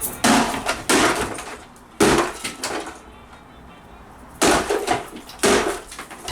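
A loudspeaker cabinet being smashed: about five heavy crashes with wood cracking and splintering, the last two after a short pause.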